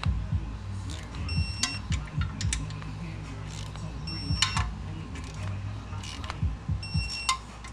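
Torque wrench working the oil pan bolts of a 3.8-litre V6, with ratcheting clicks and three short beeps about three seconds apart as bolts reach the set torque.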